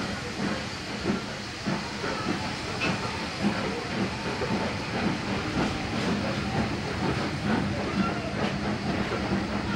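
Steam locomotive pulling a train of passenger coaches away from the platform: steady hiss of steam, with the coaches rolling past close by and their wheels giving irregular clicks and knocks on the track.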